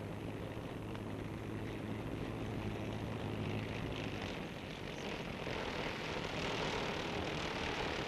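A vehicle engine runs with a steady low hum, and the sound grows louder and noisier through the second half.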